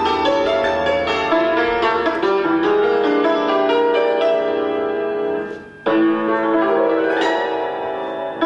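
Concert cimbalom (țambal) played solo with two mallets: fast runs of struck notes that ring on and overlap. A little past the middle the playing thins out briefly, then resumes with a sudden strong stroke.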